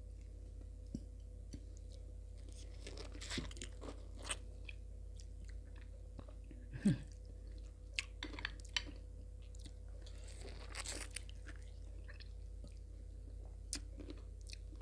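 Close-miked chewing of juicy tangerine segments: scattered short wet clicks and smacks of the mouth, with a faint steady hum underneath.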